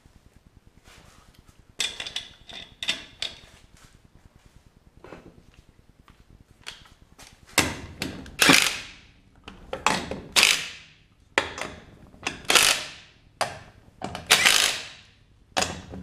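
Lug nuts being run onto the wheel studs of a steel wheel with a hand-held power tool, going round the nuts in a cross pattern. There are light clicks and rattles of the nuts at first. From about seven seconds in the tool runs in a string of short spins, one per nut.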